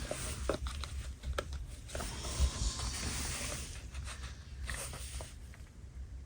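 Rustling and small clicks of handling as a Rotring 600 all-metal mechanical pencil is slid into a stitched pencil holder on a notebook.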